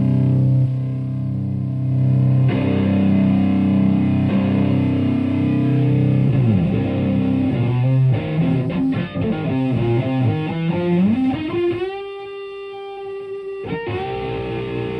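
Electric guitar (Stratocaster) through a Rat-style distortion pedal into a Marshall Plexi amp and 4x12 cabinet, playing distorted. A held chord rings out first, then the pitch bends down, a quick run of notes follows, and a slide up leads into a long sustained note.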